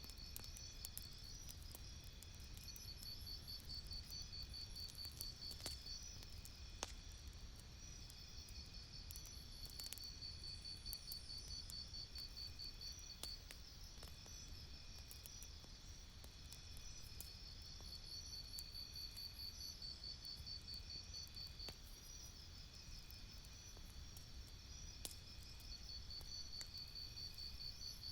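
Campfire crackling with scattered sharp pops over a steady low rumble, while insects trill in repeated high-pitched bursts of a few seconds each.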